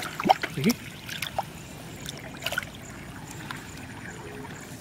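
Shallow floodwater sloshing and trickling around hands working underwater, with a few small splashes and clicks.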